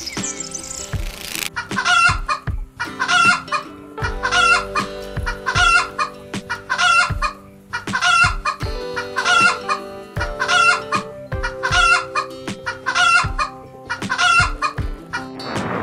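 Chicken calling in short, evenly spaced calls, about one a second, a dozen or so in all, starting about a second and a half in. Under them runs background music with a steady low beat.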